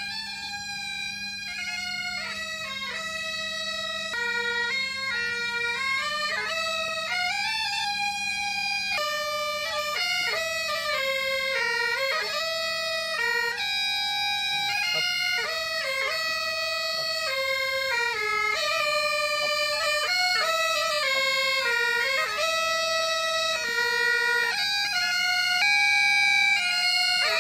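Several Great Highland bagpipes playing a tune over their steady drone, growing gradually louder.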